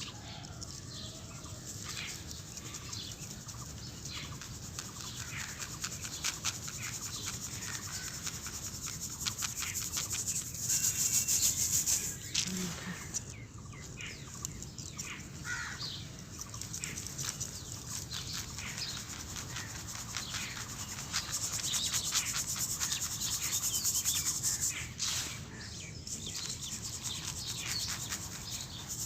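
Crushed dry cement powder being sifted by hand through a sieve: a dense, gritty rustle full of fine crackles, swelling louder twice.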